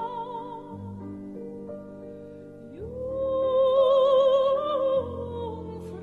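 Dramatic operatic music: a singer holds long notes with vibrato over sustained accompanying chords. About three seconds in, the voice slides up into a louder held note.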